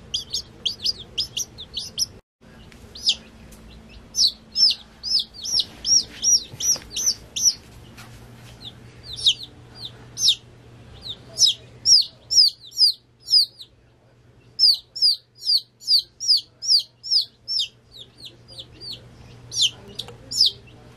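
Baby chicks peeping loudly and insistently: short, high calls that each fall in pitch, about three a second, in runs with brief pauses. These are the contact peeps of a chick looking for its keeper.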